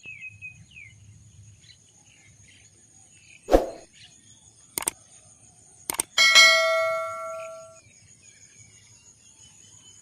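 A couple of knocks and clicks, then a struck metal object rings out loudly and fades away over about a second and a half. Faint bird chirps and a steady high insect hum run underneath.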